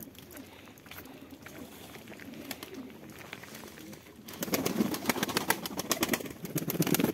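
Domestic pigeons cooing, with the cooing and a rapid run of clicks and rustling growing much louder about four seconds in.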